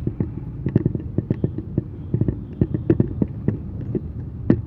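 Inside a moving car on an uneven road: a low rumble from the engine and tyres, with irregular knocks and rattles several times a second.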